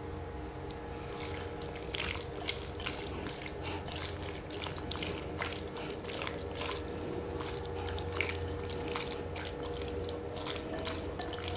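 A hand squelching and kneading raw boneless chicken pieces in a wet marinade in a bowl: a continuous run of sticky, wet squishes and clicks that starts about a second in.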